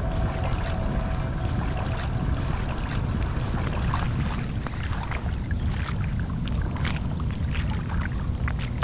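Choppy lake water splashing and lapping close to the microphone as an inflatable kayak is paddled, many small irregular splashes over a steady low wind rumble on the microphone.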